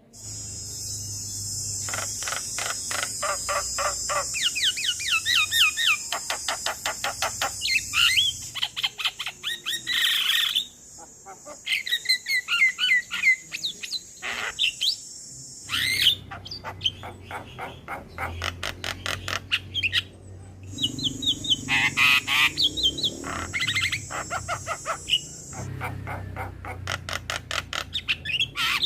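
Male Javan myna calling: fast runs of clicking and chattering notes mixed with short whistles. A steady hiss sits under the calls for the first several seconds and returns for a few seconds later on.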